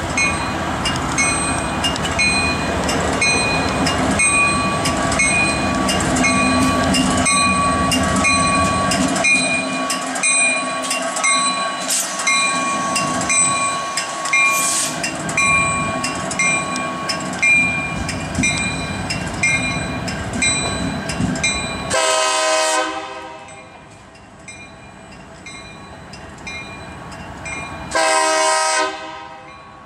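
Union Pacific SD70M diesel locomotive running light, its engine running under a bell that rings in an even rhythm. About two-thirds of the way through the ringing stops, and the locomotive's very loud Nathan K3LA five-chime horn sounds two blasts of about a second each, several seconds apart.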